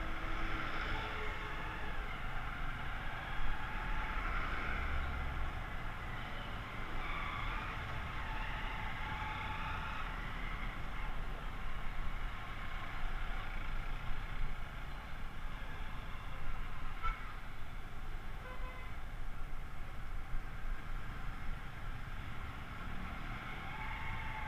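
Aprilia SR 125 scooter riding through slow, dense city traffic. Its engine mixes with the steady running of the motorbikes and cars close around it.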